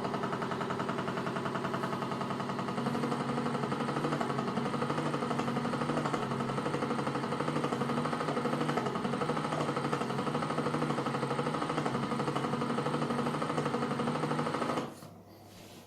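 Small electric motor of a homemade ice cream maker running steadily with a fast, even hum, a little louder from about three seconds in, then cutting off near the end.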